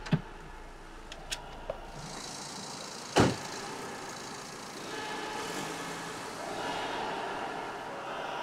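A car door clunking shut, a couple of small clicks, and a loud thump about three seconds in. Then the car's engine and tyre noise swell and fade as it pulls away.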